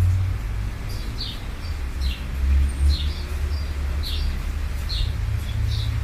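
Birds chirping in short, high notes, several times a second and irregularly spaced, over a steady low rumble.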